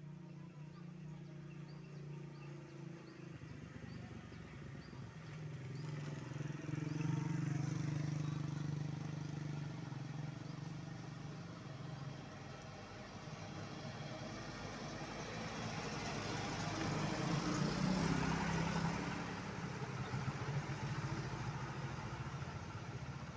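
Diesel light dump truck engine running as the truck approaches and passes, with motorcycle engines passing as well. The sound swells twice, and is loudest about three-quarters of the way through.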